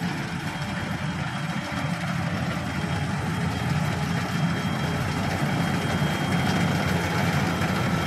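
Small motorcycle engine running as the bike, laden with sacks of harvested rice grain, rides up the path, its steady drone growing gradually louder as it approaches.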